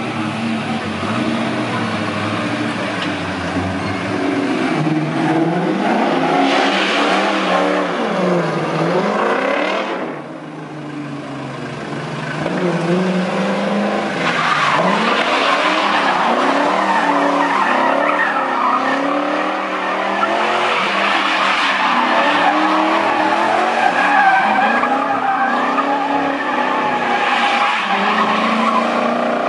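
Engine-swapped first-generation Ford Focus driven hard through tight turns, its engine revving up and falling back again and again while the tyres skid and squeal.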